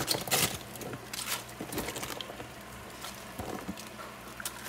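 Cabbage leaves crinkling and rustling as they are handled and dropped into a pot of broth: irregular soft crackles, loudest about a half-second in.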